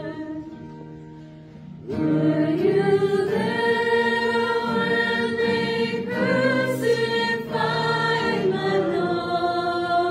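Small student choir singing in harmony at Mass. A held chord fades away, and about two seconds in the voices come back in on a new phrase.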